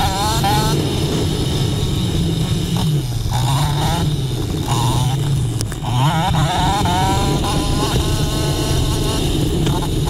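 Off-road motorcycle engine running under throttle, its pitch rising and falling repeatedly, with several rising rev sweeps as it pulls.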